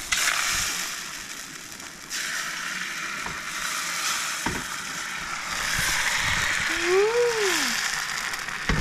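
Dosa batter sizzling on a hot pan, a steady hiss that jumps louder about two seconds in.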